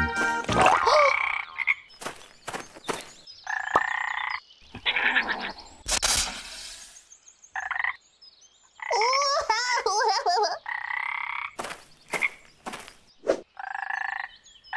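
Frog calls: a run of short, separate croaks and chirps, with a wavering, warbling trill about nine to ten seconds in.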